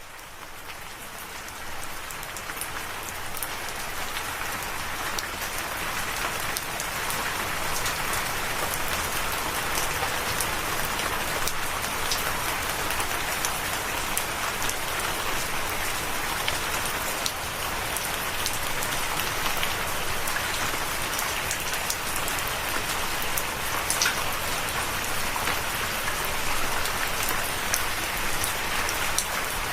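Steady rain falling, with individual drops ticking sharply on a surface. It fades in over the first several seconds and then holds steady.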